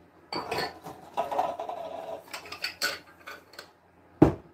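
Dishes clinking and knocking as something is taken out of a kitchen cupboard, with one sharp knock about four seconds in, the loudest sound.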